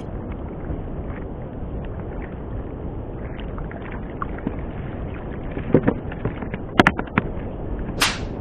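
Steady wind and sea noise in an open boat, with a few sharp clicks about six and seven seconds in. Near the end comes a brief swish as the baited handline is swung overhead for a cast.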